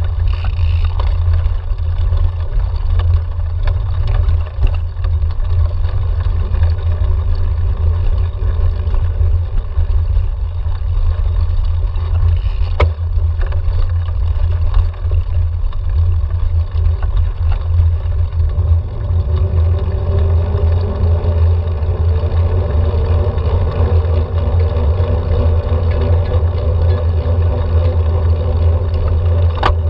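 Wind rushing over the microphone of a bike-mounted camera, with tyre noise, as a cyclocross bike is ridden over sand and dirt and then onto tarmac. A steady hum comes in about two-thirds of the way through, and there are a couple of sharp clicks.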